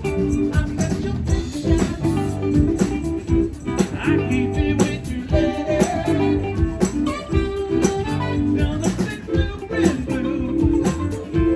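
A band playing: guitar and other instruments over a steady drum beat.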